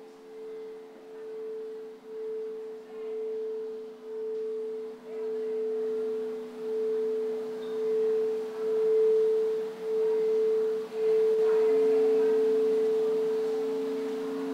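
Crystal singing bowls ringing with a pure, sustained tone that swells and dips about once a second and grows louder, over a weaker lower tone. About twelve seconds in, a stronger, slightly higher low tone takes over.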